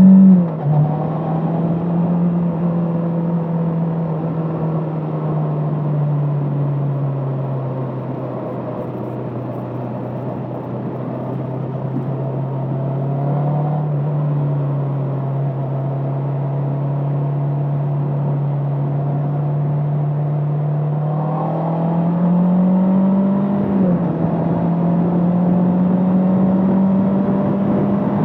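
Bristol Venturi 500 motorcycle engine running steadily on the move. The note rises and then drops suddenly just after the start and again about 24 seconds in, as at gear changes.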